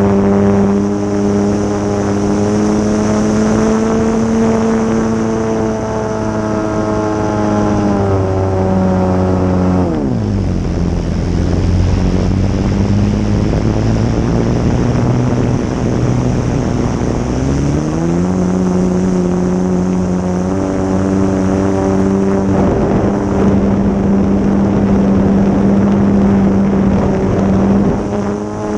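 GP123 petrol engine of a large radio-controlled Laser aerobatic model airplane, heard onboard, running at high throttle. About ten seconds in it is throttled back sharply to a low, rough note, then opened up again with a rising pitch at about eighteen seconds.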